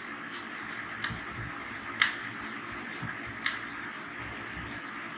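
A few sharp clicks and taps from a screwdriver and screws being worked on a TV's plastic back panel, four in all, the second the loudest, over a steady background hiss.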